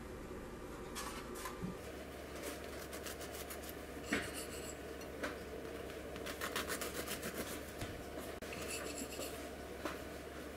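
Knife sawing back and forth through a chocolate loaf cake's crust, in runs of quick rasping strokes, with a single sharp click about four seconds in.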